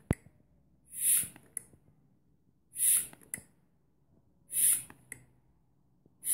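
Mityvac hand vacuum pump being worked in slow, even strokes, drawing vacuum on an engine cylinder for a leak test. Each stroke gives a short hiss of expelled air followed by a click or two, repeating about every second and three quarters.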